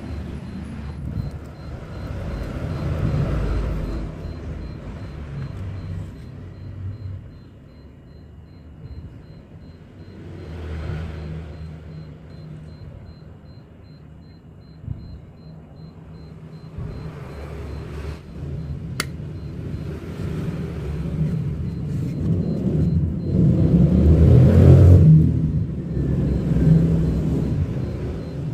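Low rumble of passing vehicles, swelling and fading several times and loudest near the end, with a single sharp click about two-thirds of the way through.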